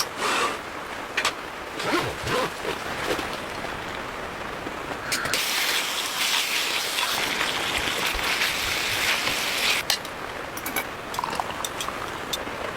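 Rain falling, with scattered sharp drop impacts. A louder hiss comes in abruptly about five seconds in and cuts off about ten seconds in.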